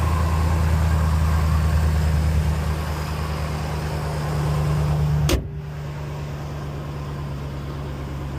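Edelbrock-supercharged 5.7 L Hemi V8 of a 2012 Ram 1500 idling steadily while it warms up just after starting. About five seconds in, the truck's hood is slammed shut with one sharp bang, and the idle carries on quieter, muffled under the closed hood.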